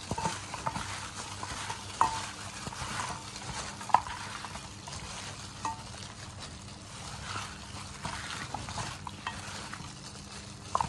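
Chunks of pork spare ribs being mixed by hand in a plastic bag inside a steel bowl, working the seasonings into the marinade: a steady wet squishing and rustling, with a few sharp knocks, the loudest about four seconds in.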